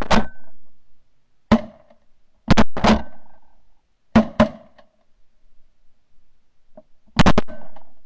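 Shotgun fired at flying geese, heard from a camera mounted on the gun: five loud bursts of sharp cracks, at the start and about 1.5, 2.5, 4 and 7 seconds in, several made of two or three cracks in quick succession.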